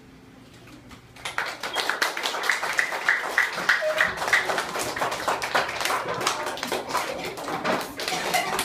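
A group of young children clapping their hands unevenly, with children's voices calling out among the claps; it starts about a second in, after a brief lull.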